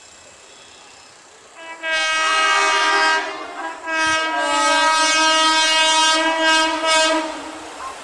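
Indian Railways locomotive horn sounding twice as the train approaches: a short blast about two seconds in, then, after a brief break, a longer steady blast of about three and a half seconds.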